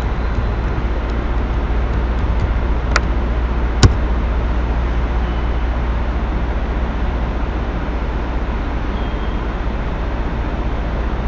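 Steady hum and hiss of the recording microphone's background noise, with two sharp clicks, one about three seconds in and a louder one about a second later.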